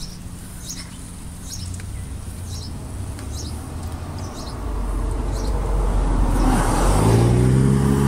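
A motor vehicle's engine, growing louder from about halfway through and loudest near the end, while a bird chirps at a steady pace about once a second in the first half.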